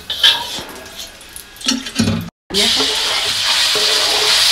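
A few light clinks of a utensil in the wok. Then, from about halfway through, a steady loud sizzle as raw chicken pieces go into hot oil in the wok and are pushed around with a spatula.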